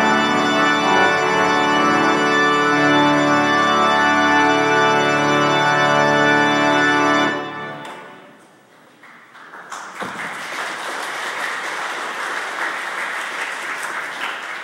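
Church organ holding a loud final chord, with a deep bass note joining under it about three seconds in; the chord is released about seven seconds in and rings away in the church's reverberation. A couple of seconds later the congregation applauds steadily.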